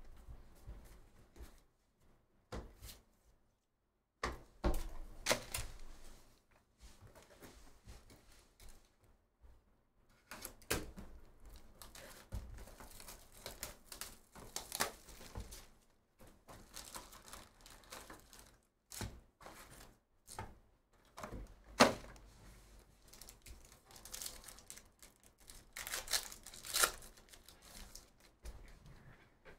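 Upper Deck Goodwin Champions foil card-pack wrappers being torn open and crinkled, with the cards inside shuffled and tapped between the hands. Irregular crackling and sharp clicks come in clusters, with one sharp snap standing out about two-thirds of the way through.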